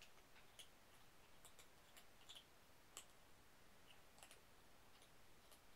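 Faint, irregular clicks and light scuffing from kittens playing in a wire crate: paws and claws on the crate floor and blanket. The clicks are scattered, with the sharpest one about three seconds in.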